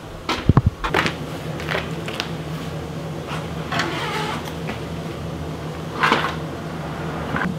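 Scattered knocks, clatters and scrapes of tools and cupboards being rummaged through in a shop, over a steady low hum.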